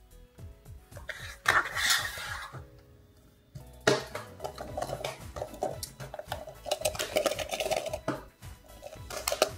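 Hollow plastic toy capsule halves clattering and clicking as they are handled, swept together and fitted shut, over background music with a steady beat.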